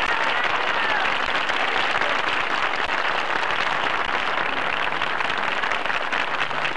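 Large studio audience applauding steadily, many hands clapping together.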